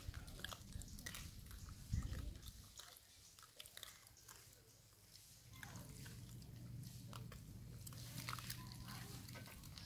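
Faint scattered clicks and smacks of long-tailed macaques' mouths, chewing and suckling, with a low thump about two seconds in and a low steady hum through the second half.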